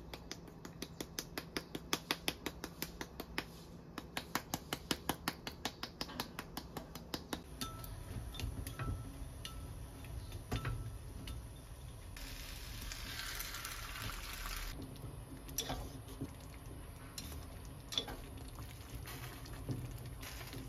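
A plastic spice shaker of dried parsley is shaken over pizza toast, a fast, even run of rattling ticks, about four or five a second, with a short break partway. Then wooden chopsticks stir and knock in a small earthenware pot of sausage and peppers on a gas stove, with a hiss lasting a few seconds in the middle.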